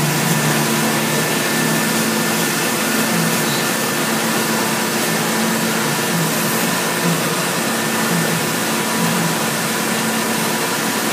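Steady electrical hum with a broad hiss from a band saw blade butt welder passing current through the blade joint to heat it red for annealing; the low buzz swells briefly at intervals.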